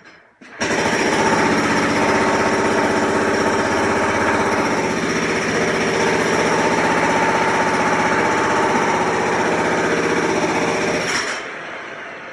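Jackhammer running in one long burst of rapid hammering, starting about half a second in and stopping about eleven seconds in.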